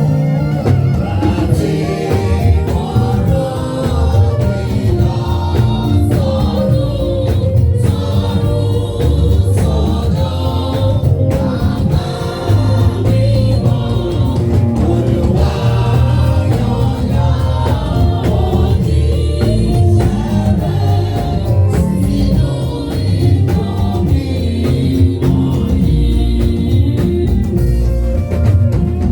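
Gospel music with group singing over a band with a strong steady bass.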